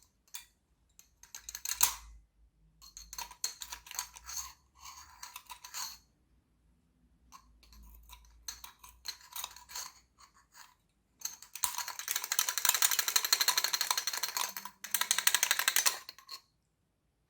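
A small tool scraping and clicking against the head of a small 9-LED torch while prying at its stuck LED board: scattered clicks and scratches, then about five seconds of rapid, louder scraping.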